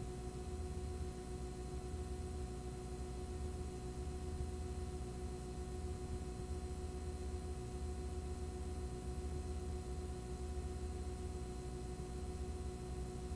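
Steady electrical hum and hiss with a few faint, unchanging tones, the sound of a blank recording signal.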